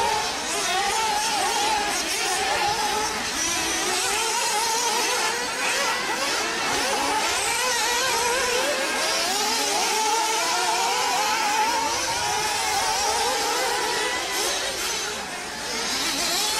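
Several radio-controlled off-road cars' small engines racing around a track, their pitches overlapping and rising and falling as they rev and ease off, with a short lull near the end.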